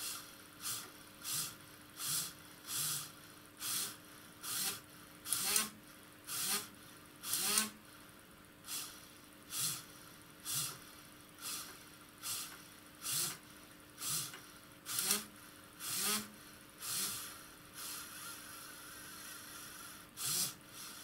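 Small electric motor of an aircraft angle-of-attack indicator, driving the needle's long lead screw through a torque-limiting clutch, running in short repeated bursts about once a second; near the end the bursts turn weaker and give way to a fainter, steadier sound. The indicator is in an error state, set off by deliberately disconnecting its input.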